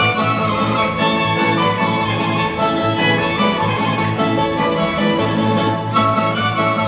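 Posavina folk dance music, led by fiddle over plucked strings with a steady, pulsing bass beat.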